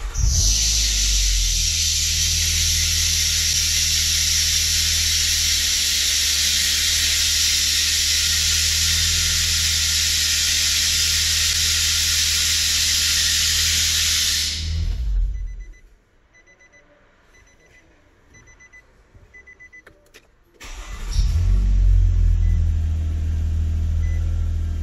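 Nissan Maxima 3.5-litre V6 started and running at a fast idle of about 1600 rpm, with a loud steady hiss over the engine hum. About fifteen seconds in the sound drops away for around five seconds, leaving a faint repeating beep, then the engine is loud again without the hiss.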